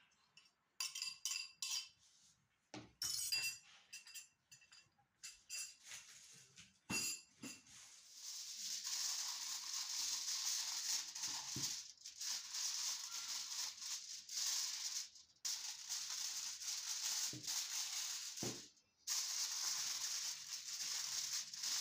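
A metal spoon clinking and scraping against a small glass jar and a glass baking dish, a few sharp ringing clinks. Then aluminium foil crinkling as a sheet is spread over the dish and pressed down, a steady rustle with a few short pauses.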